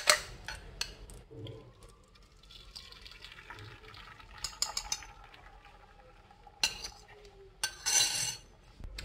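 Beaten eggs poured into a frying pan of hot melted butter and oil, sizzling faintly, while a fork scrapes the egg out of a glass bowl and clinks against it a few times, mostly in the second half.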